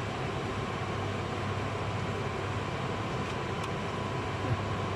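Steady workshop background hum with a faint high tone, broken by a couple of faint light clicks a little past halfway.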